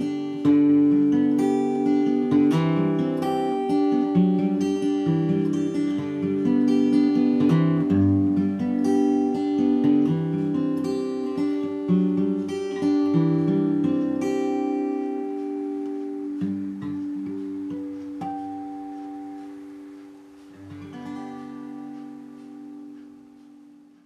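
Collings steel-string acoustic guitar picked in open D tuning (D-A-D-F#-A-D), capoed at the fifth fret so it sounds in G. The playing thins out and softens after about fifteen seconds, and a last chord about three seconds before the end rings out and dies away.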